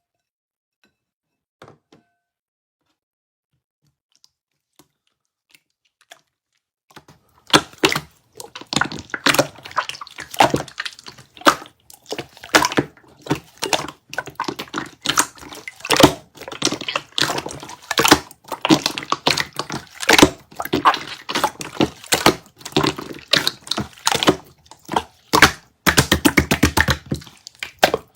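Clear slime being pressed and squeezed by hand, giving irregular clicks and pops that start about seven seconds in after near silence. Near the end there is a fast run of clicks.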